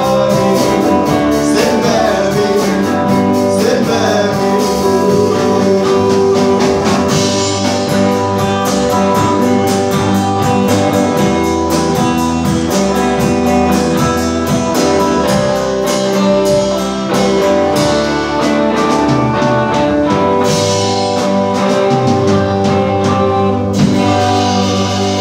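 Live band playing: hollow-body electric guitar, upright bass and drum kit, with a man singing at the microphone.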